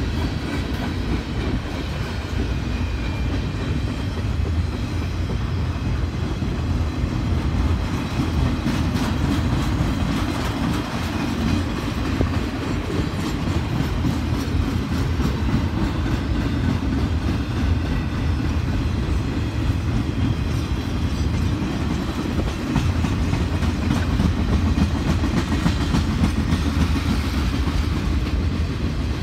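Freight cars of a manifest train rolling past: a steady rumble of steel wheels on rail with clickety-clack over the rail joints.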